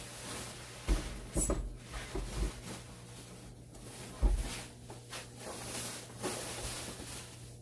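Packaging and a boxed appliance being handled during unboxing: rustling with scattered knocks and bumps, the sharpest about four seconds in.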